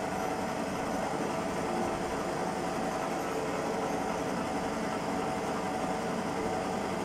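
JIB 21106 drum sander running empty: its motor spinning the sanding drum on the high-speed belt setting while the feed conveyor belt turns, a steady, quiet hum with a few steady tones.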